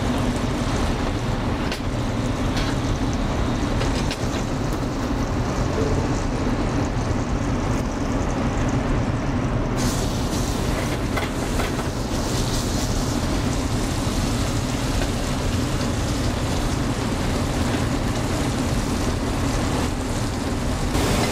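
Seasoned flat iron steak laid into a searing-hot skillet of oil and butter about halfway through, setting off a sizzle that carries on, over the steady drone of a commercial kitchen's ventilation.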